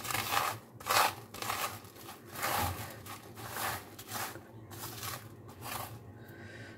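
Crisp, sun-dried garlic chips being swept and heaped together by hand on a tray: a string of dry, crunchy rustling scrapes, one stroke after another, dying away near the end. The crunch is the sign that the garlic is fully dried and ready to grind.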